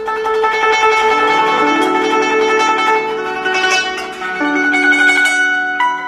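Guzheng played with finger picks in a fast, dense passage of many plucked, ringing notes, which thins to fewer, longer-held notes about four and a half seconds in.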